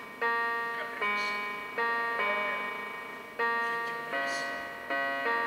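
Bell-like keyboard chords, each struck sharply and left to ring and die away, a new chord about every second, played back through laptop speakers.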